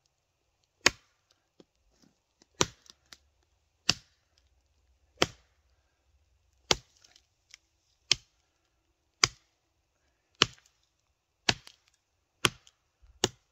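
D2 steel Odenwolf W machete chopping into wood: about eleven sharp chops at a steady pace of roughly one a second.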